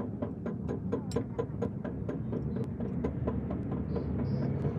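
Rapid, evenly spaced mechanical clicking, about five clicks a second, over a low steady mechanical hum.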